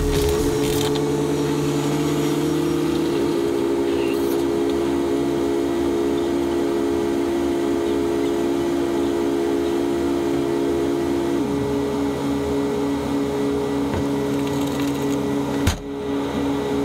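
Forklift running at the open rear doors of a cargo van after unloading a pallet: a steady machine hum with several held tones, one of which winds down and stops about eleven seconds in. There is one short knock near the end.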